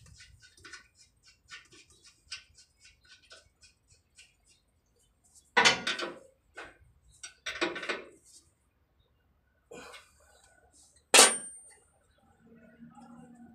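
Steel wrench working an air-line fitting on a trailer's air brake relay valve: a run of light metallic clicks, then two louder scrapes, and about eleven seconds in a single sharp metal clink that rings briefly.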